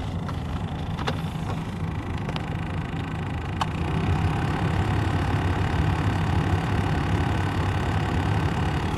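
Interior ventilation blower fan of a 1997 Vectra B running over the car's engine idling, with a few light ticks in the first seconds, like something catching on the fan. The fan's whirr grows louder about four seconds in.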